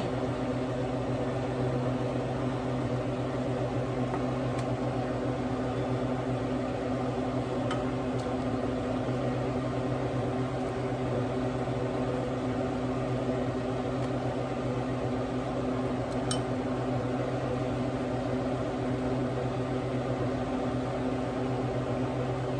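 A steady machine hum, like an appliance motor or fan running. A few faint metal clinks come from a ladle against the pot and bowl as soup is served.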